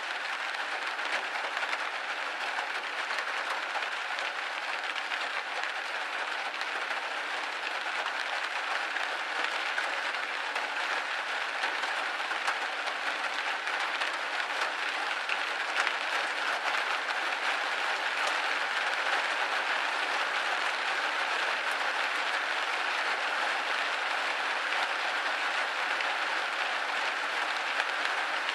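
Steady rain pattering on a window pane, a dense even hiss of drops with small taps throughout.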